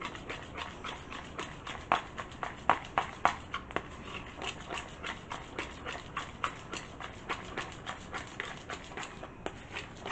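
A spoon stirring a thick mayonnaise and chili sauce mixture in a small bowl, clicking and tapping against the bowl a few times a second in an uneven rhythm.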